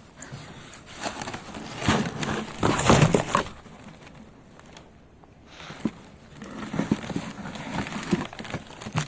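Rustling and scraping of things being picked up and handled, loudest about two seconds in and again near the end.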